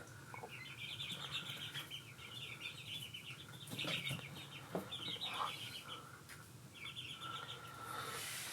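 Faint bird chattering: several short, rapid trills, each under a second long, with a few soft clicks between them.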